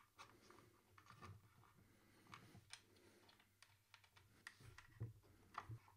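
Faint, scattered clicks and light taps from hands handling the UHK 60 v2 split keyboard halves and their plastic palm rests on a desk mat.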